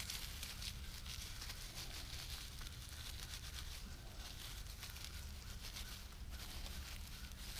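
Dry cedar and birch bark being rubbed and pulled apart between the hands into a tinder nest: a steady crinkly rustling and tearing of the fibres.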